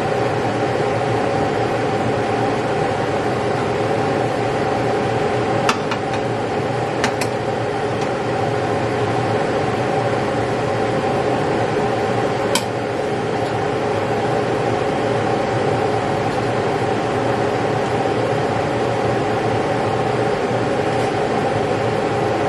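A loud, steady mechanical hum, like a running fan, with a few sharp clicks over it about six, seven and twelve seconds in.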